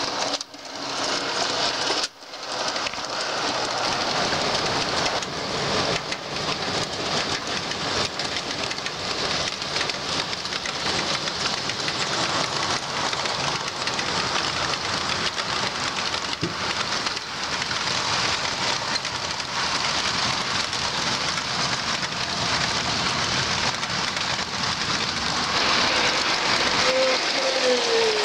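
O scale model trains rolling on 2-rail track: a steady, even rush of metal wheels on rail, with a short falling tone near the end.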